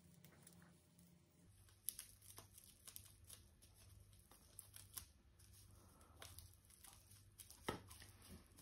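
Near silence with faint rustling and small clicks: hands handling a clump of cut hair and pressing it against the face.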